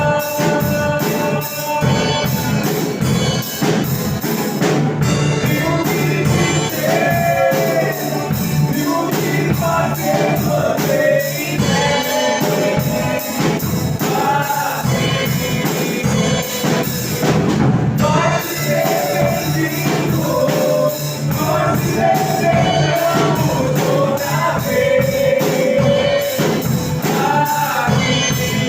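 Live gospel worship music: a church band playing with drums and tambourine while singers sing a praise song.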